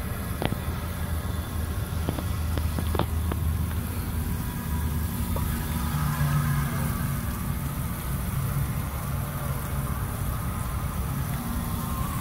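Fire hydrant flowing full from both 2½-inch outlets, two streams of water splashing onto the ground with a steady low rumble. The water runs brown: the hydrant is being flushed of sediment before a static pressure gauge is fitted. A few light ticks in the first few seconds.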